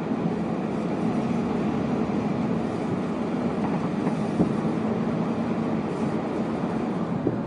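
Steady road and wind noise of a moving truck, heard from riding in its open back, with a constant low hum and one faint small knock a little past the middle.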